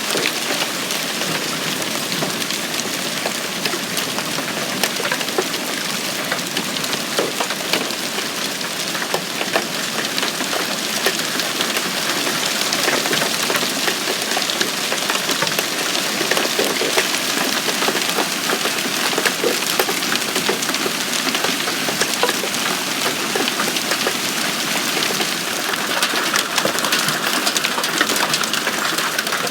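Hailstones falling hard and fast in a dense, steady hiss, with many sharp ticks of individual stones striking hard surfaces; some stones are about dime-sized.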